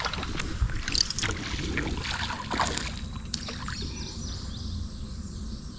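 Scattered light knocks, clicks and small water sounds around a small fishing boat over a low steady rumble, busier in the first few seconds and then quieter.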